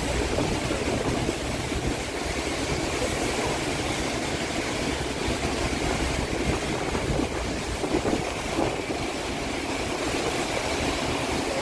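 Steady rushing background noise of shipyard work in a drydock, with no single distinct event standing out.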